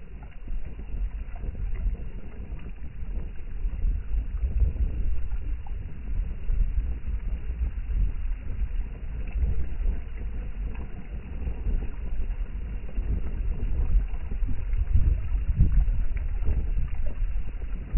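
Strong wind gusting against the microphone as a low rumble that swells and eases, over waves washing on a fish pond.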